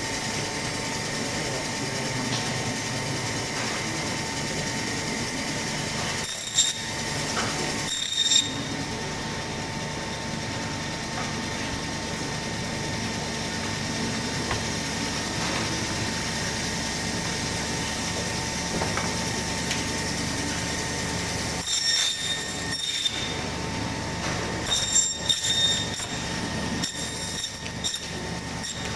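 Butcher's meat bandsaw running with a steady hum. Brief louder, higher-pitched bursts come as the blade cuts through the goat carcass: two about a quarter of the way in and several near the end.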